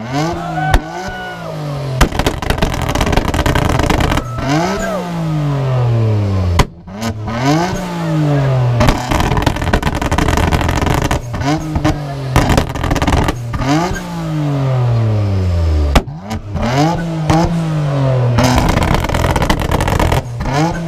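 R33 Nissan Skyline's engine revved hard in place, over and over, each rev climbing and falling back. A few sharp bangs come near the start and again about sixteen seconds in.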